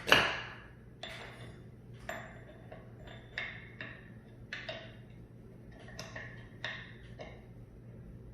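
Metal winch parts clinking against each other as a gear is worked loose and handled. A sharp clank with a short ring right at the start, then about ten lighter clinks spread over the next seven seconds, over a low steady hum.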